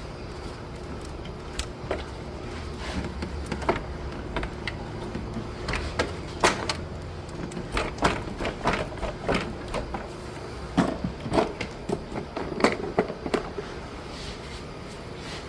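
Irregular metallic clicks and knocks of a wrench working a radiator mounting bolt loose, many short strokes coming thicker and louder from about six seconds in, over a steady low hum.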